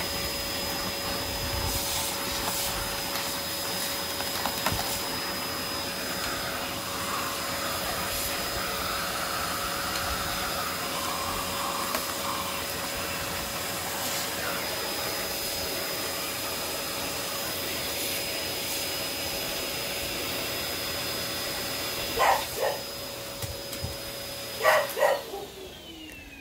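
Vacuum cleaner running steadily with a constant whine and suction rush, its hose nozzle sucking dust out of an upright vacuum's brush-roll housing. Near the end there are a few short, sharp sounds, then the motor is switched off and winds down.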